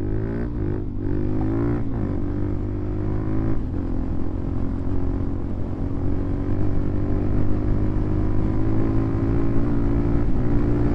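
Suzuki DR-Z400SM supermoto's single-cylinder four-stroke engine accelerating hard through the gears, its pitch climbing and dropping at each upshift in the first few seconds. It then holds high revs in top gear, the pitch creeping slowly upward.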